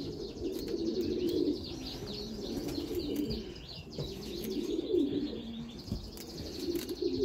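Bokhara trumpeter pigeons cooing, a repeated low rolling coo, with higher chirping over it and a few light clicks.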